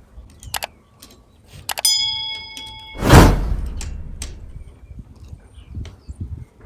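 Metal tool work on a bicycle's front wheel: a few sharp clicks, then a ringing metallic clang about two seconds in. About three seconds in there is a loud thump with a low rumble fading after it, followed by small clicks.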